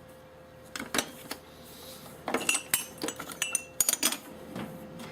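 Steel hand tools clinking and clattering in a metal tool chest drawer: a scatter of sharp clinks, thickest in the second half, with one ringing briefly.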